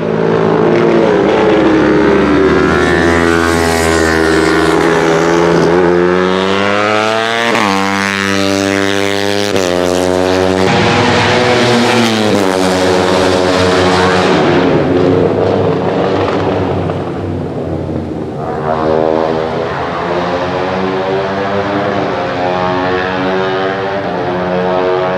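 Sport motorcycles on a race circuit accelerating hard and passing by at speed, one after another. Their engine pitch climbs and falls repeatedly as they run through the gears and go past.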